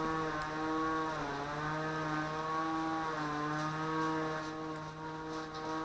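Brushless motors of a small homemade 250-size FPV quadcopter idling while it sits on the ground: a steady low hum with a row of overtones, its pitch wavering and dipping slightly now and then.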